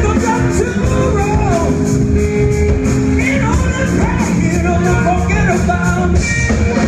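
Hard rock band playing live: electric guitar and drums with a male singer's voice over a steady cymbal beat.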